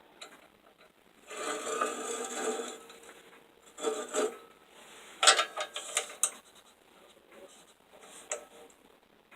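Steel flat bar being handled and set in a drill vise: a scraping slide a little after a second in, then short metal knocks and clicks, with no motor running.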